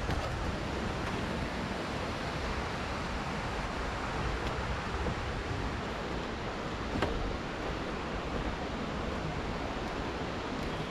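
Steady rush of a stream flowing over rocks, with one sharp click about seven seconds in.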